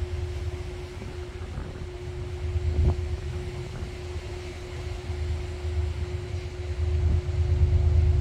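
Wind buffeting the microphone in a rumble that rises and falls in gusts, over a steady low hum.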